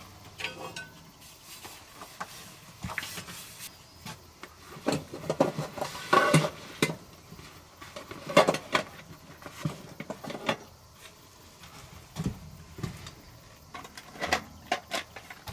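Camping gear being packed into a backpack: irregular rustling and handling with clinks and knocks of metal items. The busiest, loudest handling comes in the middle.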